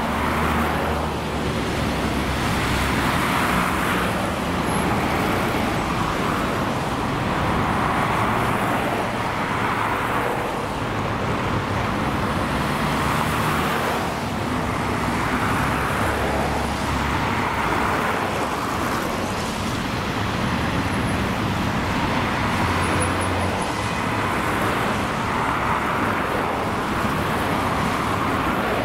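Street traffic on a wet, slushy road: a steady wash of car tyres and engines, swelling and fading as vehicles pass every couple of seconds.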